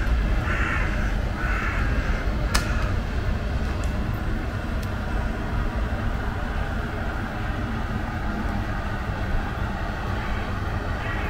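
A crow cawing two or three harsh times in the first couple of seconds, over a steady low outdoor rumble; a single sharp click comes shortly after.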